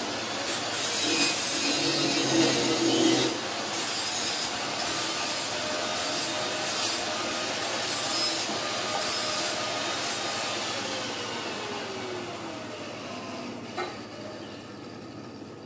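A handheld power tool working on the stainless steel dish-rack frame: a harsh rasping noise with short hissing surges and a brief hum about two seconds in. After about ten seconds the pitch falls and the sound slowly fades as the motor winds down.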